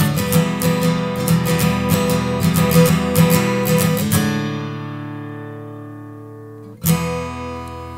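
Strummed guitar music. Fast rhythmic strumming stops about halfway through and leaves a chord ringing and fading, and one more strum near the end rings out.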